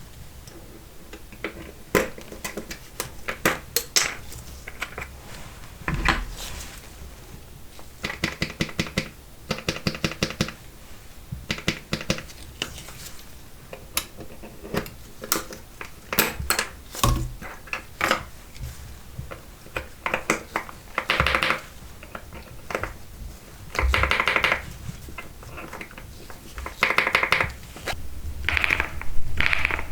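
Typing on an Epomaker TH99 mechanical keyboard: runs of quick keystroke clicks broken by short pauses, with single harder clacks in between.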